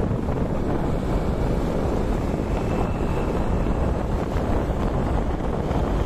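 Wind rushing over the microphone of a moving vehicle, a steady noise with a low road rumble underneath.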